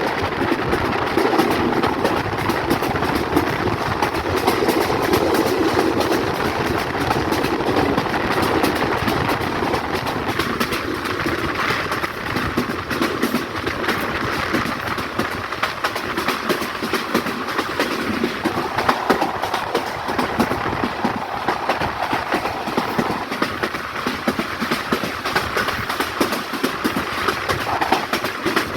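Rangpur Express passenger train running on the line: a steady rumble with a dense clatter of wheels over the rails.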